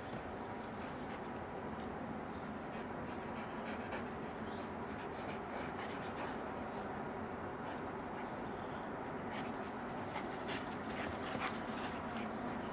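Two Belgian Tervuren dogs vocalising and breathing as they play-fight and court, with a run of short irregular clicks that grows denser in the second half.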